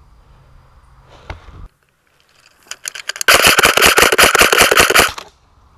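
Airsoft rifle firing a full-auto burst: a rapid, even rattle of about ten shots a second, lasting about two seconds. A single thump comes about a second before the sound drops out briefly ahead of the burst.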